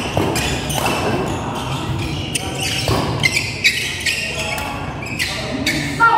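Badminton rally: rackets striking the shuttlecock in quick exchanges, about one to two hits a second, with shoes squeaking and scuffing on the court floor.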